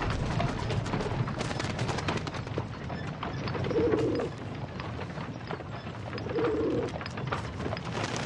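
White pigeon cooing twice, about four and six and a half seconds in, with a scatter of short chirps and clicks behind it.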